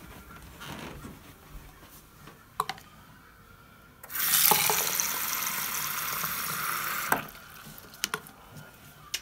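Bathroom sink faucet running into a plastic cup for about three seconds, turned on about four seconds in and shut off abruptly. A few sharp knocks come before and after the water.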